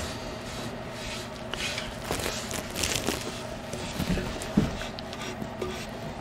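Soft rubbing and rustling as a brush spreads liquid penetrating epoxy over a cedar board, with a short light knock about four and a half seconds in.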